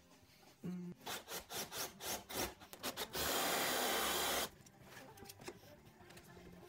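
Short wooden scrapes and knocks for about two seconds, then a Bosch cordless drill with a large flat-bottomed bit boring into plywood as a steady rasping noise for about a second and a half, deepening a chair-leg hole.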